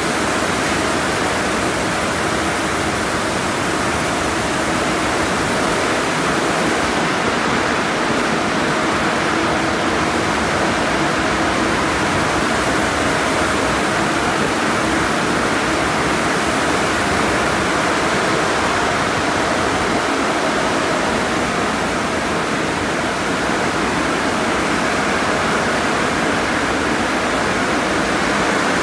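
Car wash spray arches pouring water down onto a car in a conveyor tunnel: a steady, loud hiss of falling water with no break, and a faint steady hum beneath it.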